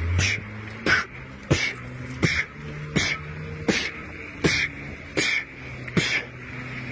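Electric hydrofoil board riding over choppy water: about nine sharp slaps come evenly, roughly 0.7 s apart, over a steady low motor hum.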